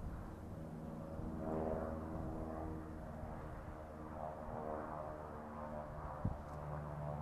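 Air Tractor crop-dusting plane flying low past, its engine and propeller droning with a pitch that rises and falls slightly as it passes. A short thump about six seconds in.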